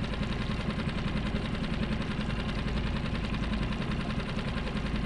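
Mercury 6 hp outboard motor idling steadily, a fast even run of firing pulses.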